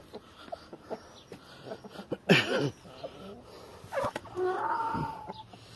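Chickens clucking and calling, with a loud short call about two seconds in and more calls about four to five seconds in.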